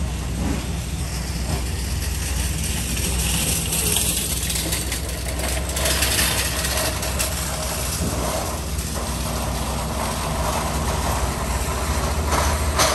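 A vehicle engine idling steadily with a low hum.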